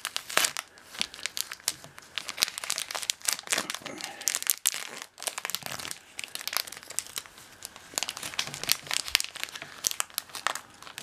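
Thin plastic film wrapper of a packaged sandwich crinkling and crackling as it is torn open and peeled off the sandwich, an irregular run of sharp crackles.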